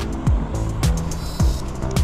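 Background music with a steady drum beat: a deep kick just under twice a second with crisp hi-hat ticks between.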